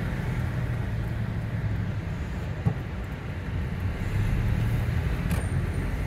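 Car cabin noise while driving: a steady low engine and road rumble, with a single sharp click about two and a half seconds in.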